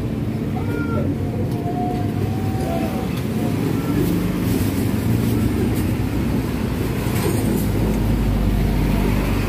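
Steady low rumble of motor vehicle engines, growing a little louder near the end, with faint voices early on.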